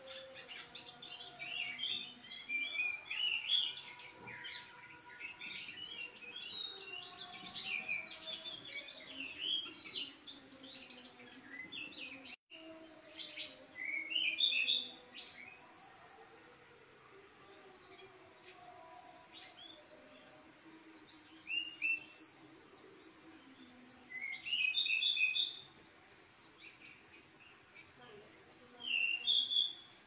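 Caged pied bushchat (burung decu) singing a long, busy song of high chirps, trills and quick varied phrases, with hardly a pause. The sound cuts out for an instant about twelve seconds in.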